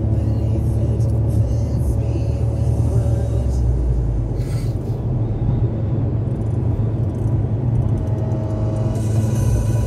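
Steady low rumble of a car's engine and tyres, heard from inside the cabin while driving at motorway speed.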